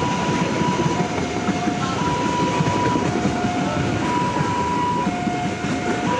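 Passenger train coaches rolling past at close range, a steady dense rumble of wheels on rail. Over it, an electronic warning signal alternates between a high and a low tone, each held about a second.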